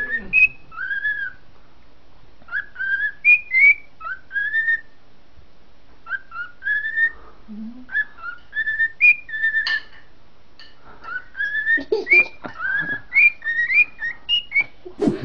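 Cockatiel whistling its song in short bursts of gliding notes with sharp chirps, pausing briefly between phrases.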